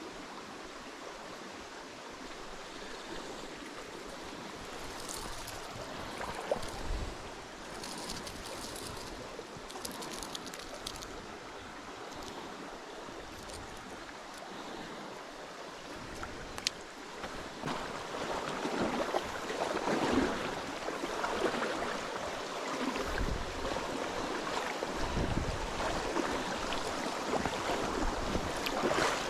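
Stream water rushing and splashing over rocks, steady, growing louder in the second half, with a sharp click and a few low thumps.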